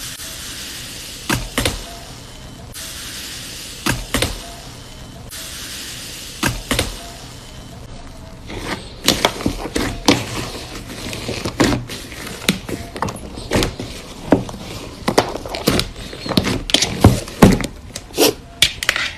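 Slime being squeezed and poked by hand, giving sharp pops and clicks. The pops are sparse at first, with two stretches of soft hiss between them, then come thick and fast in the second half.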